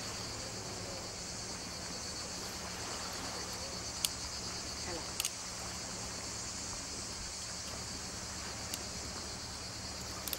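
Cicadas chirring in a steady, high-pitched chorus, with a few faint clicks about four and five seconds in.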